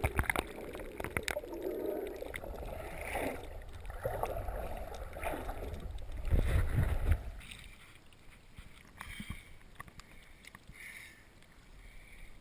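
Water sloshing and splashing with a low rumble, which drops to a much quieter hush about seven seconds in.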